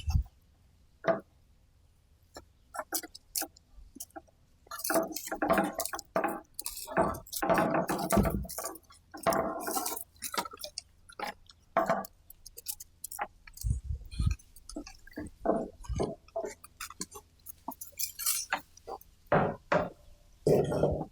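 Irregular clinks and knocks of metal fencing hardware being handled, with a dense flurry from about five to ten seconds in and a few dull thuds later.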